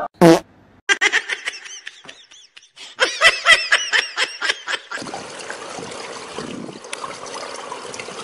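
A short loud cry, then quick bursts of laughter, about four ha-ha pulses a second. About five seconds in this gives way to a steady outdoor background hiss.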